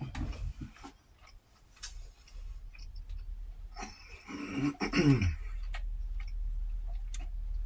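A single throaty sound from a man, about a second long, about halfway through; its pitch slides steeply down. Small clicks and taps come before it, and a low steady hum sets in with it.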